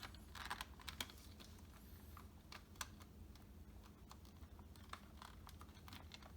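Faint, irregular small plastic clicks and taps as the Dyson DC50's brush-roll on/off switch pieces and springs are handled and pressed into place.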